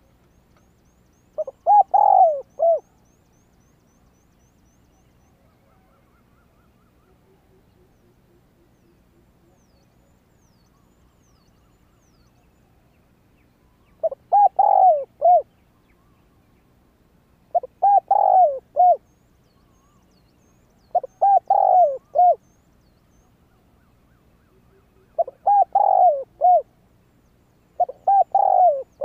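Spotted dove cooing: six short phrases of a few rolling notes each. One comes about two seconds in, then after a long pause five more follow at an even pace of about one every three and a half seconds.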